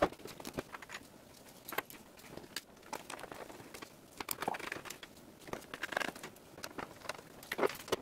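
Handling noise from reassembling a desktop PC case: scattered light clicks and knocks of the sheet-metal case and cover being fitted, with crinkling from the hands in disposable gloves.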